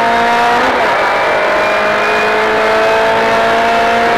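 Rally car engine at full throttle, heard from inside the cabin. The revs dip sharply just under a second in, then climb steadily again.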